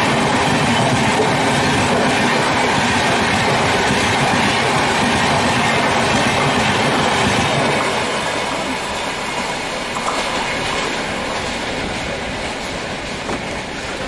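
Rajdhani Express coaches rushing past at speed: a steady rumble and clatter of wheels over the rails, growing quieter from about eight seconds in as the end of the train passes and draws away.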